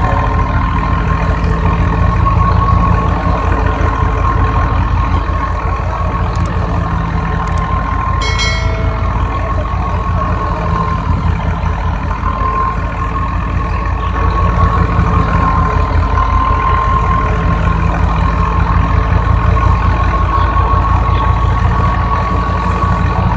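Al-Ghazi tractor's diesel engine running steadily under load, a pulsing low rumble with a steady whine above it. A short high-pitched tone sounds briefly about eight seconds in.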